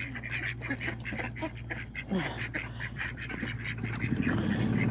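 A flock of mallard ducks quacking and chattering in short calls, one falling call about two seconds in. A low droning sound builds near the end.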